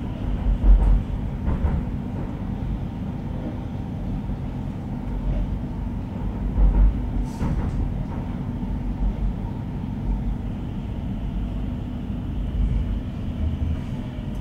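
Stockholm Metro C30 train running through a tunnel, heard from inside the car: a steady low rumble of wheels on rails. There is one sharp click about seven seconds in, and a faint high whine joins in the second half.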